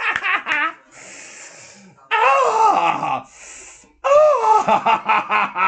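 A man's voice making drawn-out, high-pitched wailing cries that rise and fall in pitch, two long ones, with breathy hissing exhales between them.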